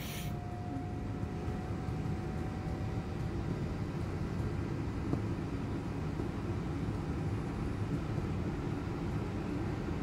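Steady low hum and hiss of air handling, with a faint thin tone that fades out after about three seconds.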